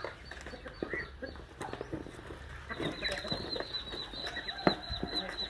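Flock of poultry, mostly Muscovy ducks with a turkey and chickens, feeding on overripe bananas in a cardboard box: many small pecks and bill clicks, with a few short soft bird calls.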